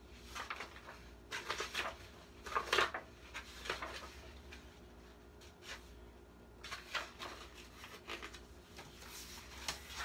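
Paper pages of a picture book being turned and handled: a series of short rustles in the first few seconds, then another run of rustles near the end.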